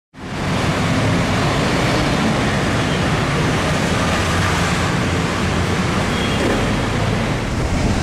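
Steady rush of city street traffic noise, constant throughout, with no siren sounding.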